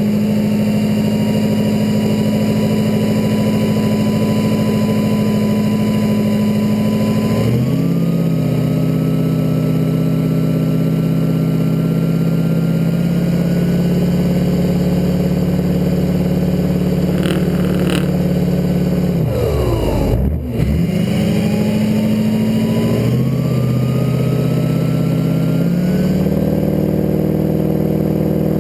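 Diesel pickup truck engine held at raised revs at the start line. The revs step up about a quarter of the way in, drop briefly about two-thirds in, then build again, while a high whine climbs slowly during each build.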